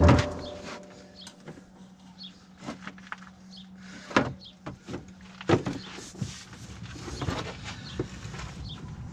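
Hand work on the side-by-side's parts: a sharp knock with a short ringing at the start, then scattered clicks and taps as pieces are handled and fitted, over a faint steady hum that stops about halfway through.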